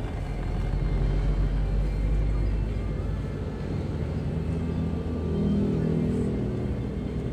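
A car driving, heard from inside the cabin: a steady low rumble of engine and tyres, with a humming engine note that strengthens about five seconds in.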